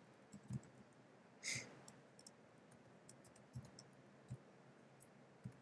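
Near silence with a few faint, scattered clicks of a computer keyboard as a line of code is typed, and one short breath about a second and a half in.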